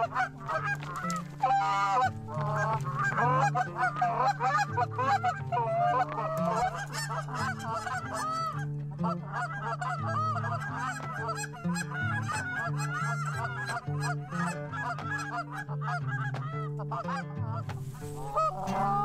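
Canada geese honking, many short calls overlapping without a break, over background music with a steady low bass line.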